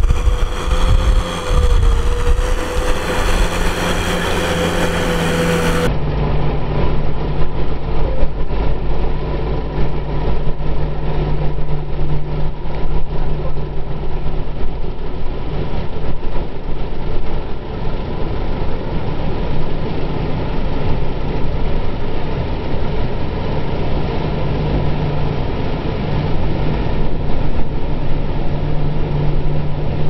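Farm tractor's diesel engine running steadily under load while ploughing through flooded paddy mud, with a steady low engine hum. The sound changes abruptly about six seconds in, at a cut to another tractor.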